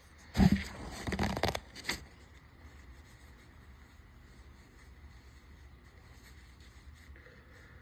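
A person sneezes once, sharply, about half a second in, followed by a second or so of noisy breath and rustling that ends about two seconds in; after that only faint room noise.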